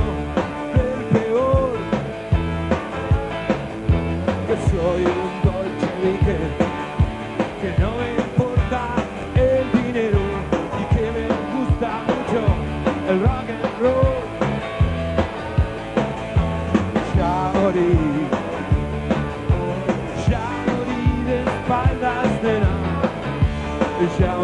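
Rock band playing live with no vocals: electric guitars, bass and drums keeping a steady beat, with a lead line of bending notes over it.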